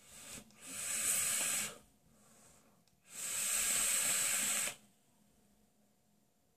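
A hit on a box-mod vape: a hissing draw of air through the atomizer, then a longer, louder hissing exhale of a big vapour cloud.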